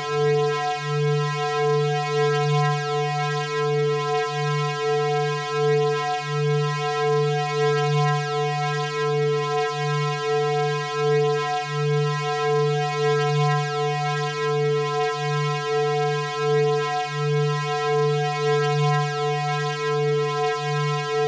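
Dark ambient synthesizer drone music: low sustained tones held steady, slowly swelling and fading in loudness.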